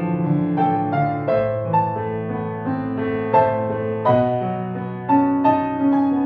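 A grand piano played solo: a slow melody of single held notes over sustained lower notes, a new note struck every half second or so.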